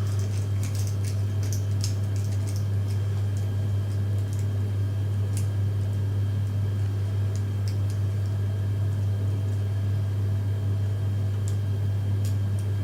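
Faint, scattered small metallic clicks of a lock pick and tension bar working the pins of a pin-tumbler lock cylinder, over a loud steady low hum.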